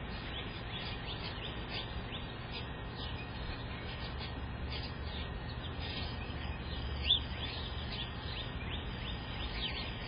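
Small birds chirping steadily, many short high downward chirps several a second, with one louder chirp about seven seconds in, over a low steady rumble.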